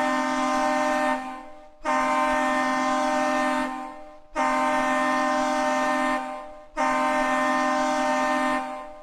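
Hockey goal horn sounding in long, steady-pitched blasts. One blast is already sounding and fades out about a second in, then three more follow, each about two seconds long with a fading tail.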